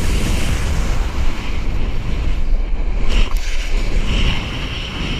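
Wind buffeting a body-mounted camera's microphone and a snowboard scraping over packed snow during a downhill run, a steady loud rush that eases slightly about four seconds in.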